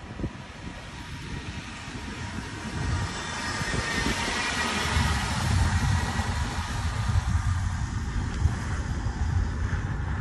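Strong storm wind gusting against a phone's microphone: an uneven low buffeting rumble under a rushing hiss that swells in the middle and eases again.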